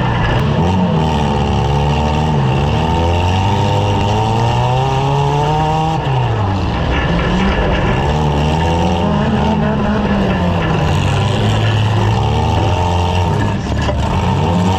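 Several compact demolition-derby car engines revving up and down together, their pitches rising and falling over one another.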